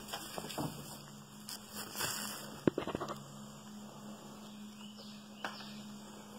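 Black bears moving about on a gravel drive beside a car: scattered scuffs, with a sharp click about two and a half seconds in and another about five and a half seconds in, over a faint steady hum.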